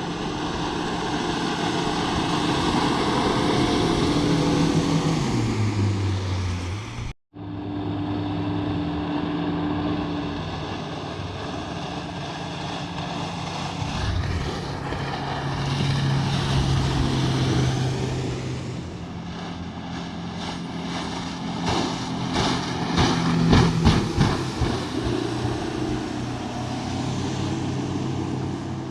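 Boat outboard motor running under way, its pitch holding and then dropping as the throttle changes, over a steady rush of wind and water; a run of sharp knocks near the end.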